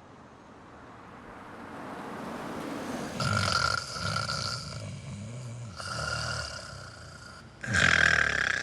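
A woman snoring loudly in her sleep: three long snores a couple of seconds apart, the last the loudest.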